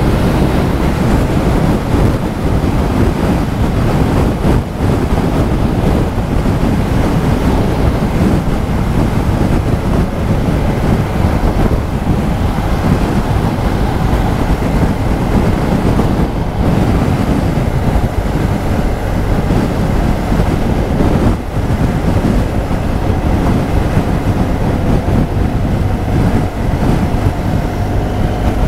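Strong wind rushing and buffeting over the microphone, with the BMW R1200 GS Adventure's boxer-twin engine running underneath at road speed. The noise is loud and steady throughout.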